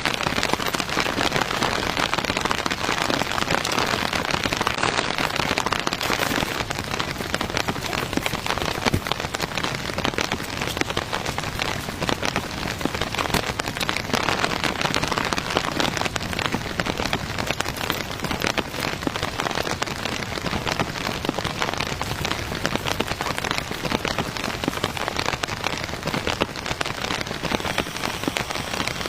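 Heavy rain falling steadily: an even hiss packed with countless fine drop impacts.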